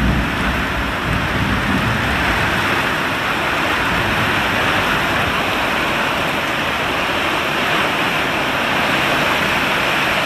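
Heavy thunderstorm rain falling steadily, with wind buffeting low in the first couple of seconds.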